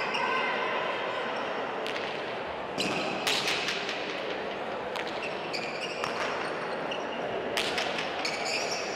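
A frontón ball striking the court: sharp smacks a second or two apart, starting about two seconds in, as the ball hits the wall and floor at the start of a rally. The smacks echo in the large indoor hall over a steady background hiss.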